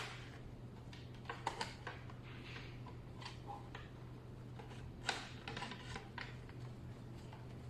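Light clicks and taps of hands handling a hard drive and the NVR case, a few at a time and irregular, over a steady low hum.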